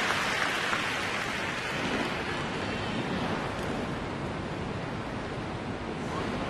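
Arena crowd applauding the skater's introduction, the applause slowly dying away.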